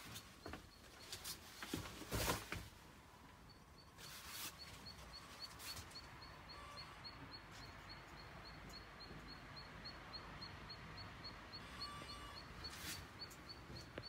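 A faint, high chirp repeating evenly about three times a second over quiet outdoor background noise. A few knocks and bumps come in the first two or three seconds, before the chirping starts.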